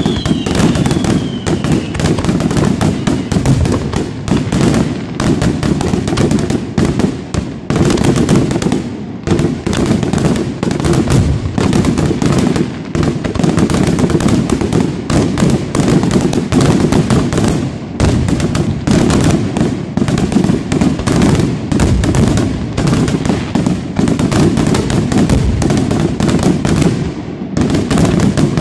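Fireworks display in full barrage: aerial shells bursting in rapid, overlapping succession, a dense, nearly unbroken run of bangs and crackling over a deep rumble. A short falling whistle sounds right at the start.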